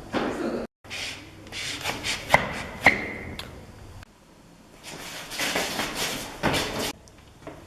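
Foley sounds made by handling objects: bursts of rubbing and scraping, two sharp taps a little over half a second apart that ring briefly at a high pitch, and a soft thump near the end.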